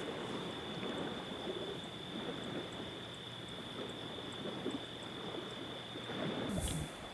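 Night-time outdoor ambience: a steady high-pitched insect trill over a low rushing noise, with a brief hiss near the end.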